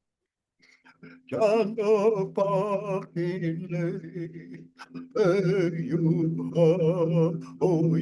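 Singing: after about a second of silence, a voice sings wavering, chant-like phrases with short breaks, over a steady held drone tone.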